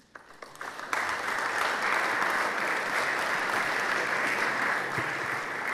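Audience applauding: a few scattered claps at first, then full, steady applause from about a second in.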